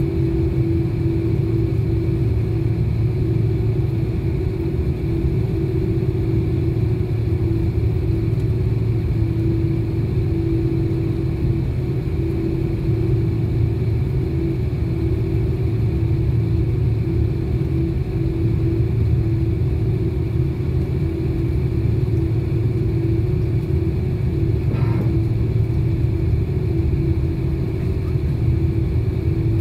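Jet airliner cabin noise while taxiing: the turbofan engines at low taxi power give a steady drone with a constant mid-pitched hum over a low rumble.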